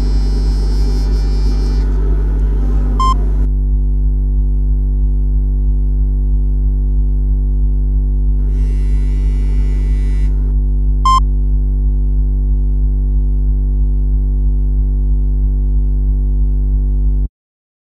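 Electronic synthesizer soundtrack: a steady deep drone with a soft regular pulse, overlaid twice by a hissy, shimmering texture that each time ends in a short bright blip. It cuts off suddenly near the end.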